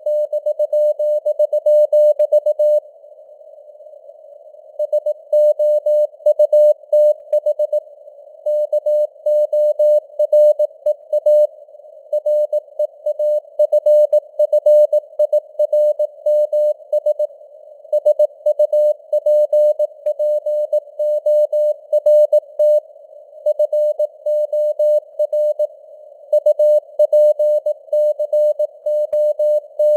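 Morse code (CW) sent at 18 words per minute: a single steady tone keyed on and off in dots and dashes over a narrow band of simulated radio hiss, its strength fading up and down (QSB). About three seconds in, the keying breaks off for a two-second gap between words, then goes on.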